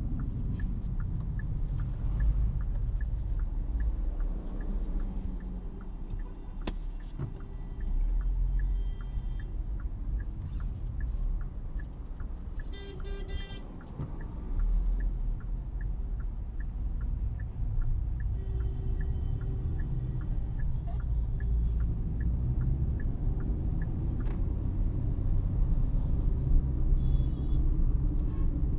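Hyundai Exter's 1.2-litre Kappa petrol engine and road rumble heard from inside the cabin while driving. A steady light ticking runs through most of it, and a few short pitched tones sound, the loudest about halfway through.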